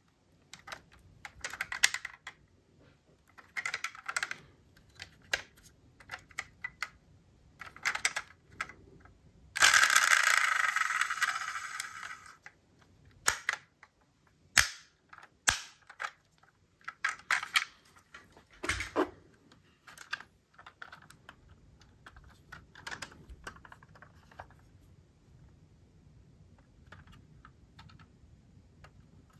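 Diecast metal model cars and their boxes being handled: scattered clicks, taps and small rattles, with a rustle lasting about three seconds roughly a third of the way in and a few sharper clicks after it.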